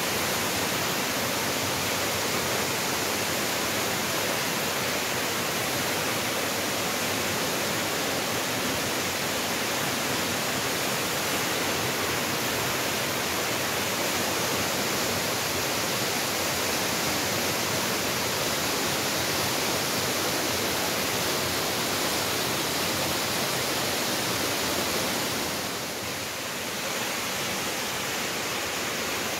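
Waterfall: a steady rush of falling water, dipping slightly for a moment near the end.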